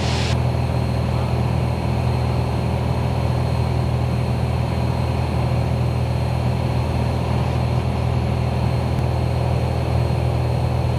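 Steady drone of a Commander light aircraft's piston engine and propeller heard inside the cabin in level cruise, with power set and mixture leaned. The pitch and level stay constant throughout.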